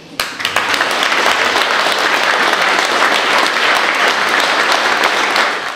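Audience applauding: many hands clapping together, starting suddenly just after a speech ends and fading out near the end.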